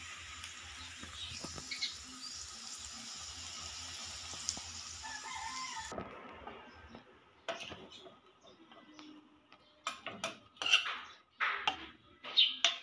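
A steady hiss for the first half. Then, after a short lull, a utensil clinks and scrapes against a ceramic bowl as stir-fried bitter gourd with egg is tossed and scooped, in sharp separate clinks that get louder near the end.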